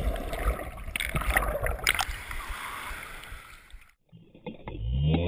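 Seawater heard through a camera held underwater: a muffled rushing and bubbling with a few sharp knocks, fading out about four seconds in. Music starts just before the end.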